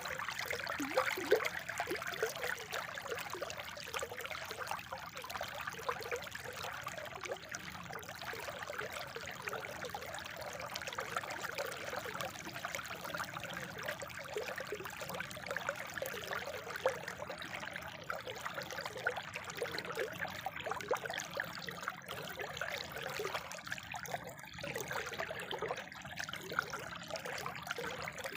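Spring water trickling and splashing steadily, a continuous bubbling flow.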